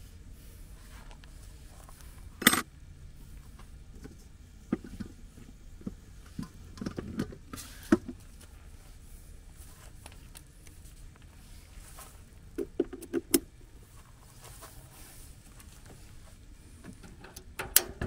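Scattered clicks and knocks of handling: a garden hose with a brass fitting being uncoiled and fitted onto a tankless water heater's water inlet, with a loud click about two and a half seconds in and small clusters of clinks later on.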